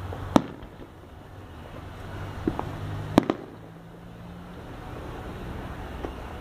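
Fireworks going off in the sky. There is a sharp bang about half a second in, a smaller pop around two and a half seconds, then the loudest bang at about three seconds, quickly followed by another, and a faint pop near the end. A steady low hum runs underneath.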